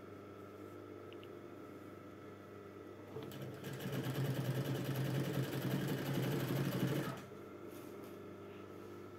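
Electric household sewing machine stitching a seam in one run of about four seconds, starting about three seconds in and stopping sharply about seven seconds in.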